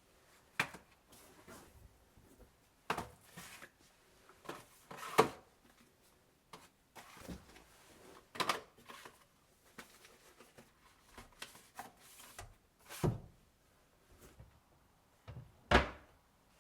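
Irregular knocks, clicks and light clatter of kitchen items being handled and put away, with sharper thunks about five seconds in, about thirteen seconds in, and near the end.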